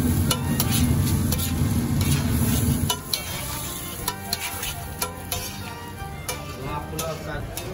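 Metal spatula scraping and clinking on a large flat iron tawa as rice is tossed and spread over the hot plate, with a light sizzle. A heavy low rumble under the first three seconds drops away, leaving lighter scrapes and clicks.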